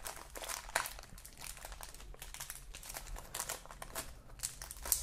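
Thin plastic bag crinkling as it is handled, with a clear plastic blister tray: a run of irregular crackles with a few sharper ones, about a second in and near the end.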